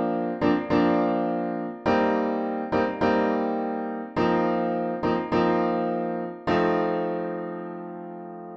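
Background piano music: chords struck one after another and left to ring and fade, a new chord every second or two.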